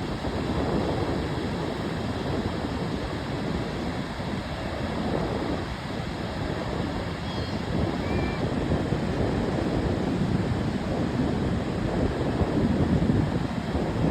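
Ocean surf washing ashore: a steady rushing wash that swells and eases as waves come in, with wind on the microphone.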